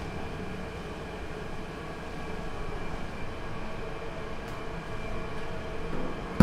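Steady drone of food-factory machinery, with a few faint clicks near the end.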